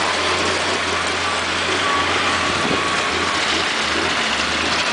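Heavy diesel scrapyard machinery running steadily under load, a constant low engine drone with a loud noisy wash over it.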